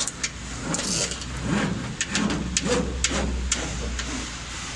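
Steady low machine hum, with scattered clicks and rustles as a fiber laser's fiber cable is handled and fed along a plastic cable carrier.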